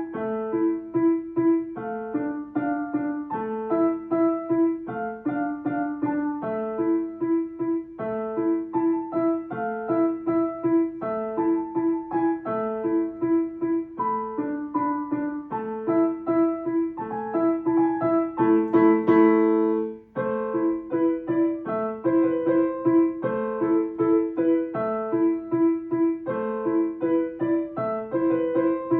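Solo piano playing a piece built on a steadily repeated middle note under a moving melody, with a louder passage and a momentary break about two-thirds of the way through.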